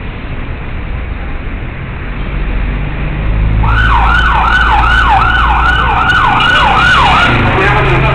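Street traffic noise with a low rumble, then a little under halfway through a siren starts, its pitch sweeping up and down rapidly, about two sweeps a second; it stops shortly before the end.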